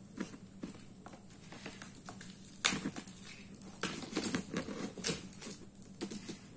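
Dried cow-dung coating crackling and crumbling as fingers pick it apart and pull it off a cloth bag, in irregular crunches and rustles. The loudest crack comes about two and a half seconds in, with a busier run of crackling a little later.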